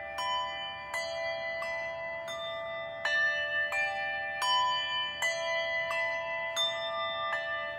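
Several bells of different pitches rung in turn by a small group, a new strike about every three-quarters of a second, each ringing on under the next. This is a memorial toll of 400 rings.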